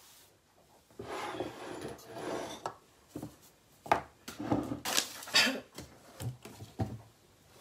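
Close handling noise: rubbing and rustling with several sharp knocks and taps on a wooden tabletop as things are moved about.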